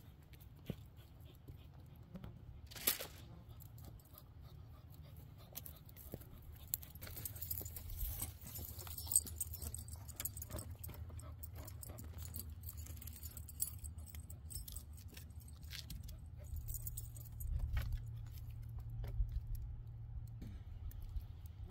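Light metal jingling of a dog's collar tags as the dog moves about, heaviest midway, with scattered snaps and knocks of dry wood being carried and laid on a campfire, over a low steady rumble.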